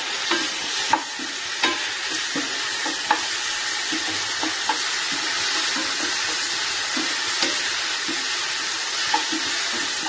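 Sliced onion, tomato and capsicum sizzling in oil in a non-stick pan while a spatula stirs and tosses them, with irregular light knocks of the spatula against the pan, the loudest about a second in.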